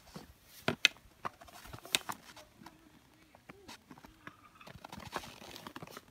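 Footsteps crunching in dry snow, with irregular sharp crunches and clicks and a run of short squeaky tones about halfway through.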